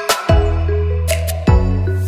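Background music: held notes over a deep bass that comes in about a third of a second in and again about a second and a half in, with a few sharp percussive hits.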